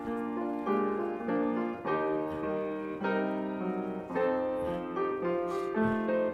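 Piano playing the introduction to a congregational hymn: a run of chords changing about once a second.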